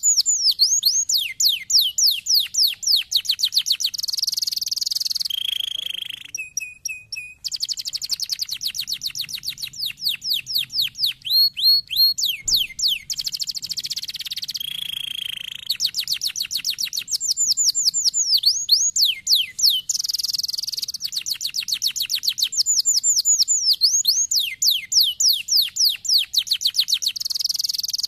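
Domestic canary singing a long song of rapid trills: fast runs of repeated down-slurred notes, buzzy rolls and a lower held note, with a short lull about six seconds in.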